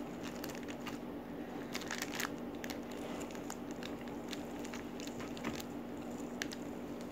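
Fingers tearing and squishing pieces of chicken in green chili sambal, giving small wet squelches and scattered soft clicks at irregular moments. A steady low hum runs underneath.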